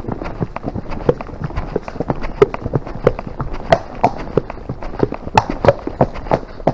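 Hoofbeats of a piebald gypsy cob moving at a brisk pace on a soft dirt woodland track, heard from the saddle. The beats come several a second in an even rhythm and get louder about four seconds in.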